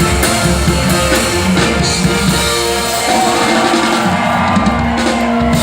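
Live band playing rock-style music, with drum kit and guitar.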